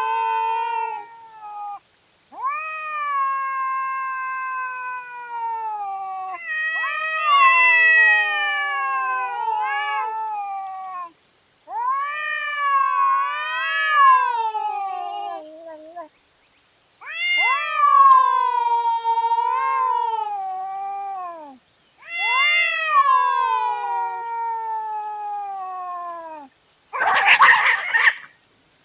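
Cats caterwauling: a run of long, wavering yowls of several seconds each with short gaps between, two voices overlapping at times, the fierce warning calls of rival cats. A short harsh hiss comes near the end.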